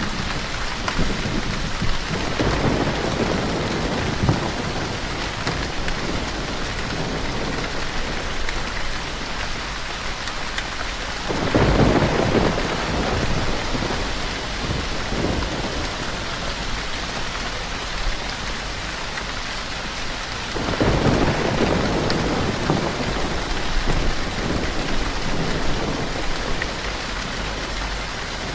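Steady rainfall with distant thunder rumbling three times, the loudest rumble about a third of the way through.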